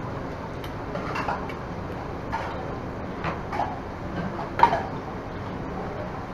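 Metal utensils clanking on cookware, about five short ringing strikes over a steady background noise, the loudest a little before the end.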